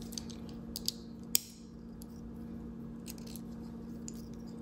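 Small metallic clicks as the arbor is turned and worked free of an Atmos 528's brass mainspring barrel, with one sharper click about a second and a half in. A steady low hum lies underneath.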